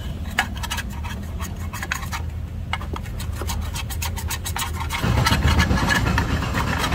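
Removed throttle body and intake manifold parts clinking, knocking and scraping against each other as they are handled in a wet plastic tub. Under the knocks runs a steady low engine hum, which gets louder about five seconds in.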